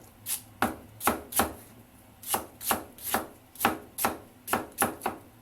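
Kitchen knife slicing half an onion, striking the cutting board about fifteen times in an uneven rhythm with a short pause partway through.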